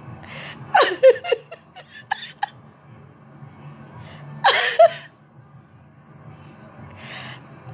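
A person laughing in short, loud outbursts, about a second in and again around four and a half seconds in.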